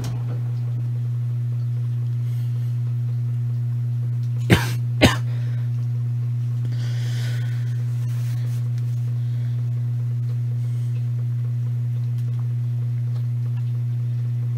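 Maytag washing machine running mid-cycle with a steady low hum. Two short, sharp sounds come about half a second apart, roughly a third of the way in.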